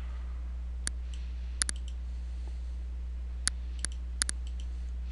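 Computer mouse button clicking: about seven short, sharp clicks, some in quick pairs, as points of a line and arc are placed in a CAD sketch. A steady low electrical hum runs underneath.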